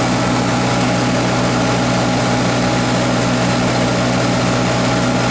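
Hercules IXB engine of a 1954 Hobart 10 kW military generator, running at a steady speed with no change in pitch or level.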